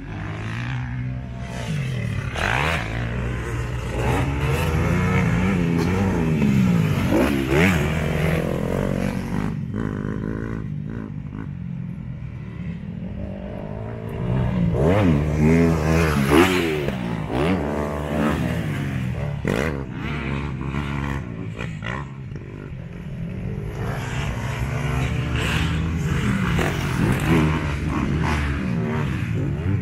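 Motocross motorcycles lapping a dirt track, their engines revving up and dropping back over and over as the bikes accelerate and back off, louder as they pass close about halfway through.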